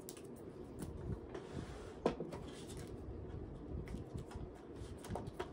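Faint handling noises of items on a desk: a few light clicks and taps with soft rustling, the sharpest click about two seconds in.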